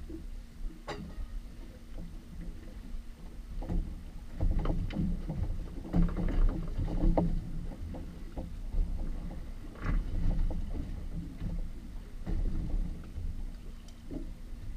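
Sea water slapping and lapping against the hull of a drifting fibreglass fishing boat, with a steady low rumble and a faint steady hum underneath. Irregular knocks and splashes come about a second in, near four seconds, around six to seven seconds and near ten seconds.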